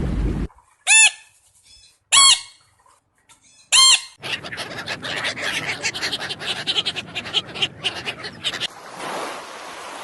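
A bird giving three short, loud squawks about a second apart, each rising and falling in pitch, followed by a rapid burst of dense chattering calls that fades near the end.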